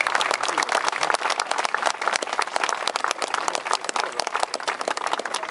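Audience applauding, many hands clapping at once in a dense, continuous stream of claps.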